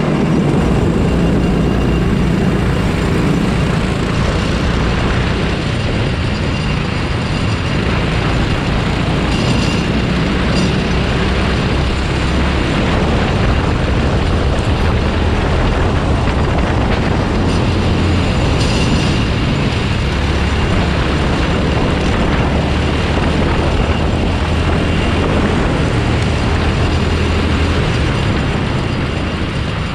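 Racing kart engine running under load, heard from on board, its note shifting up and down with the throttle over a steady rush of wind and track noise.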